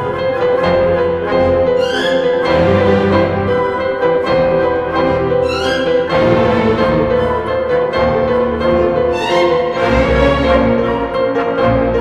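Orchestral soundtrack music with bowed strings over a long held note, and upward-sweeping runs about two, six and nine seconds in.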